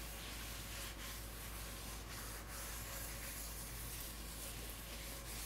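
Paper towel rubbing over the outside of a Stargazer cast iron skillet in repeated wiping strokes, spreading a thin coat of sprayed canola oil for seasoning. The sound is a faint, irregular scrubbing hiss.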